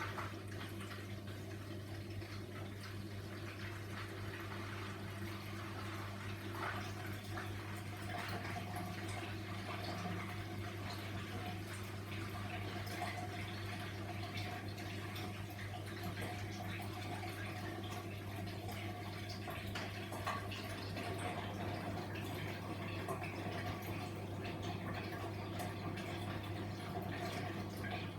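Grundig washing machine partway through a quick wash cycle: water running and splashing inside the machine over a steady low hum.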